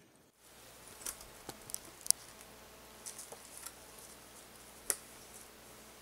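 Scattered light clicks and snaps of pine branches and sticks being handled by someone working in a tree crown, with two sharper cracks about two and five seconds in, over a faint steady hiss.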